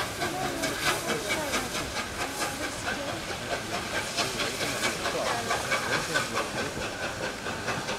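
Three-cylinder Peppercorn A1 Pacific steam locomotive 60163 Tornado moving slowly, steam hissing from its open cylinder drain cocks, with regular sharp beats throughout.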